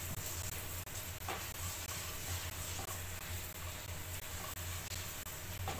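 Masala of ginger-garlic paste and ground spices sizzling in oil in a non-stick wok while a spatula stirs it, with a couple of brief spatula clicks against the pan. A steady low hum runs underneath.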